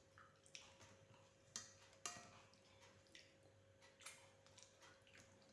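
Near silence with a few faint, sharp clicks scattered through it: small eating sounds from a person at a meal.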